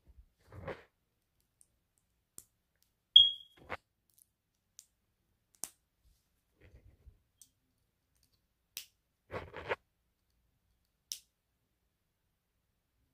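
Small plastic Lego pieces being handled and pressed together: scattered sharp clicks and short bursts of clatter, the loudest a single sharp click about three seconds in.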